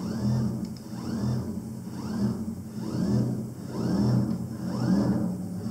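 Submerged robotic fish's drive motor working its tail back and forth: a whirring whine that swells and rises in pitch with each tail stroke, a little more than once a second, over a pulsing low hum.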